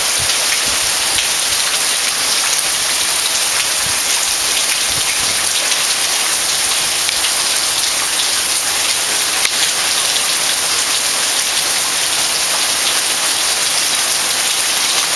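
Heavy rain pouring down steadily onto a street and lawns: a dense, even hiss of downpour.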